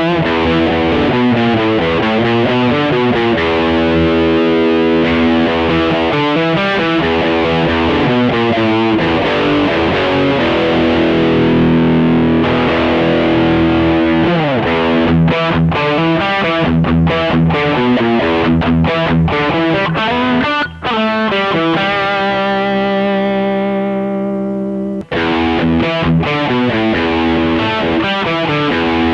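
Electric guitar played through a pocket headphone practice amp, heard straight from the amp's headphone output: a continuous run of notes and phrases, with a slide down in pitch about halfway through and a long held note whose treble fades away near the end.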